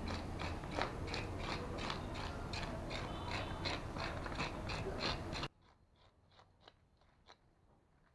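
Metal fish scaler scraping the scales off a whole mrigal carp on aluminium foil, in quick even strokes about three a second. The sound becomes much quieter about five and a half seconds in, with fainter strokes going on.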